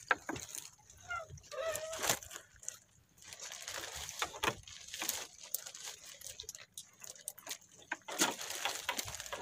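Wet gill net being pulled in and handled by hand in a wooden outrigger boat: scattered knocks, clicks and rustles of the net against the hull.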